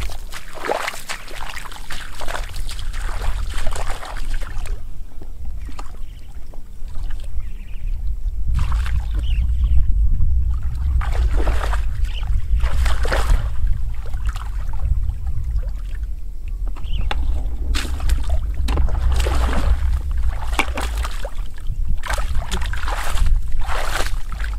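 Shallow muddy floodwater splashing and sloshing in irregular bursts as a person wades barefoot through it and gropes in it by hand, over a steady low rumble.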